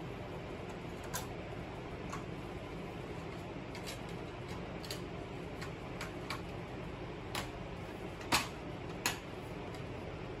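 A steady low hum with about ten sharp clicks and ticks at irregular intervals, the loudest one a little past the middle.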